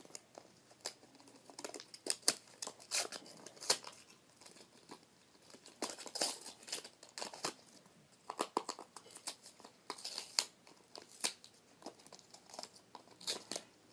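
Toy packaging crinkling and tearing as it is unwrapped by hand, in irregular sharp crackles.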